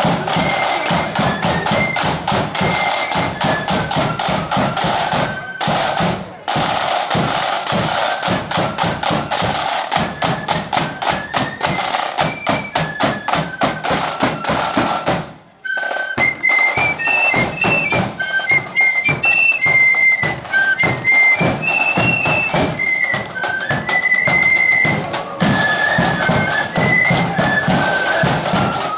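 Marching 'blood and thunder' flute band: flutes playing a high melody over rapid side-drum beats and a bass drum. The band stops for a moment about halfway through, then the flutes and drums strike up again.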